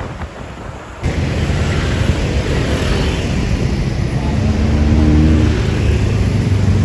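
Large tour bus's diesel engine running close by as the bus moves past, a loud low rumble that starts abruptly about a second in and swells a few seconds later.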